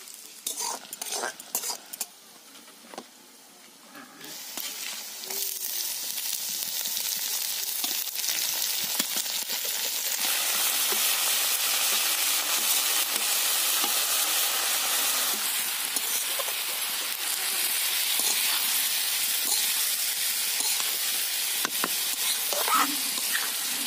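Small fish frying in oil in an iron karahi, a metal spatula scraping and tapping as it stirs. From about four seconds in a loud, steady sizzle builds as fresh chopped spinach is tipped into the hot oil and stirred through.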